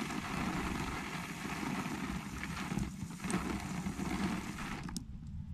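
Garden hose spray nozzle jetting water onto a helmet visor, a steady splashing hiss on the plastic, heard from inside the helmet. The spray cuts off abruptly about five seconds in. This is a hose test of the visor's rainproof film.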